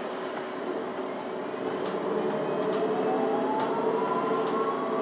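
Cabin sound of a Metro city bus under way: engine and drivetrain running, with a whine that rises in pitch from about two seconds in as the bus gathers speed. A light click repeats a little under once a second.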